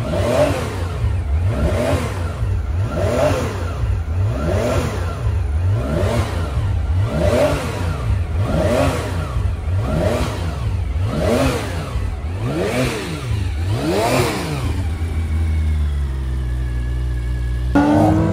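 1968 Porsche 911's air-cooled flat-six engine being blipped over and over, the revs rising and falling about every second and a half, then settling to a steady idle about three seconds before the end.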